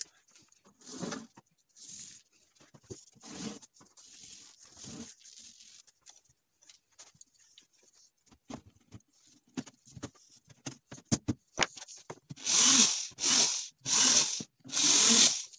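Rustling and light knocks as a wooden frame is handled and set onto the foam-glued plywood-and-foam-board hive body. Near the end come four loud blows in quick succession, a hammer driving nails into the frame.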